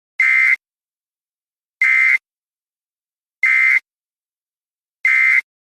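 Emergency Alert System end-of-message data bursts: four short, identical buzzing squawks of digital two-tone data, about a second and a half apart, that mark the end of the alert.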